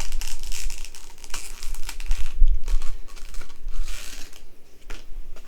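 Food packaging being handled, crinkling and tearing in irregular rustles and small crackles.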